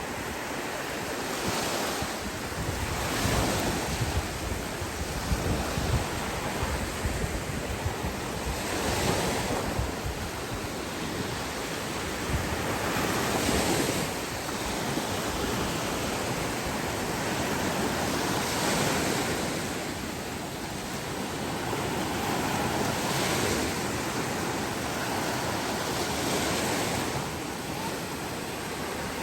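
Ocean waves breaking and washing up the beach, swelling every few seconds, with wind buffeting the microphone.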